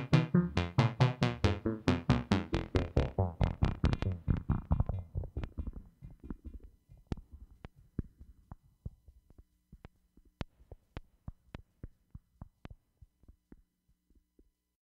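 Sequenced Moog synthesizer pattern from a Mother-32 patched with a Voyager XL, the Voyager driving the Mother-32 oscillator's FM: short repeated notes, about five a second, that fade out over several seconds until only faint clicks remain, stopping shortly before the end.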